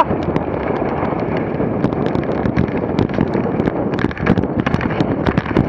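Dog sled running at speed behind a four-dog team: a steady rushing hiss of the runners over packed snow mixed with wind on the microphone, with many irregular small ticks and scrapes. A brief high-pitched cry sounds right at the start.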